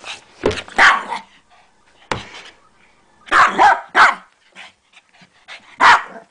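Small shih-poo dog barking in short, sharp yaps, in irregular bursts of one to three barks.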